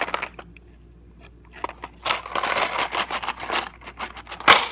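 Scraping and crinkling of an Ethernet cable and its RJ45 connector being handled and worked on, in a stretch about two seconds in, followed by a short loud burst near the end.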